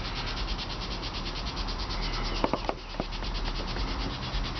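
Steady, rapidly pulsing insect trill, like crickets or cicadas, with a few sharp clicks about two and a half to three seconds in.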